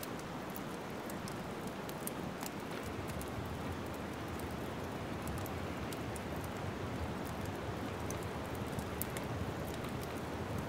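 Wood fire crackling: a steady rush of burning, dotted all through with many small sharp pops and snaps.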